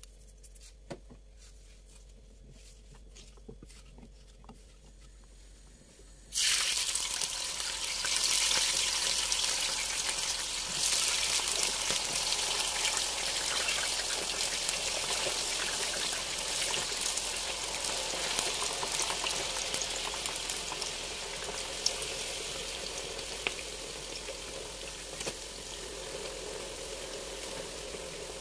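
Faint clicks and taps, then about six seconds in a sudden loud sizzle as food goes into hot oil in a frying pan. It swells twice more over the next few seconds, then keeps frying and slowly eases.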